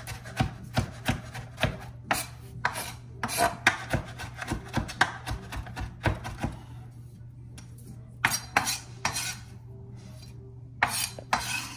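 Chef's knife mincing cilantro on a wooden end-grain cutting board: quick rhythmic chops, about three a second, that stop around six and a half seconds in, followed by a few longer strokes of the blade on the board later on.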